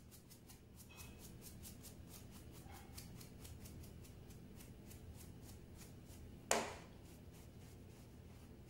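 Dry bristle brush swept quickly back and forth over the cap of a large wild Amanita calyptrata mushroom to clean it, soft rapid strokes about five a second. About six and a half seconds in, a single sharp knock as the brush is laid down on the plastic cutting board.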